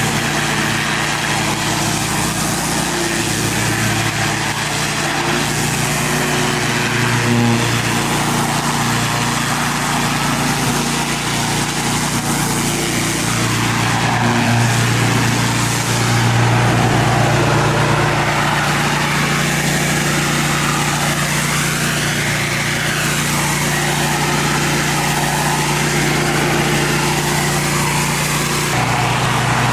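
Pressure washer running steadily, its engine humming under the loud hiss of the high-pressure water spray on concrete, the hiss shifting slowly in tone.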